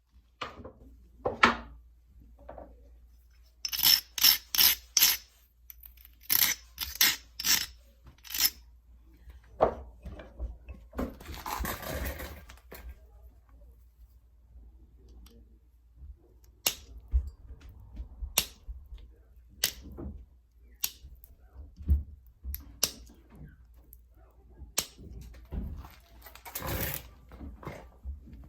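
Sharp clicks and ticks of novaculite being flintknapped into a point: two quick runs of about four clicks each, a short scraping stretch, then scattered single clicks.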